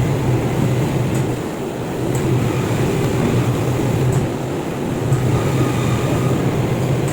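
Steady motor hum and grinding noise of a powered sharpener working a chipped knife blade, with faint high ticks about once a second.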